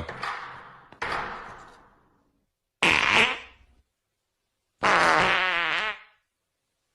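Fart sound effects, three separate ones about a second, three seconds and five seconds in, the last one longer with a wavering pitch.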